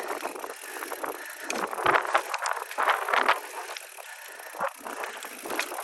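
Mountain bike rolling fast over a rough, rocky trail: continuous tyre noise with rattling and many short clicks and knocks from the bike, and a few louder surges about two and three seconds in.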